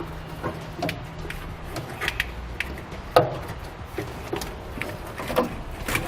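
Wiring harness being handled and fed over a truck frame: scattered rubbing, light clicks and knocks, with one sharper knock about three seconds in.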